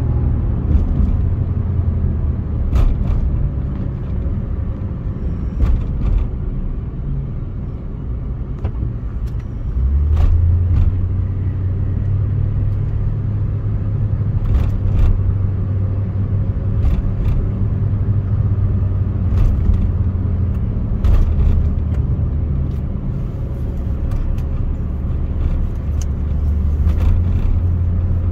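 Car driving at expressway speed on a concrete road, heard from inside the cabin: a steady low rumble of road and tyre noise, with scattered light clicks.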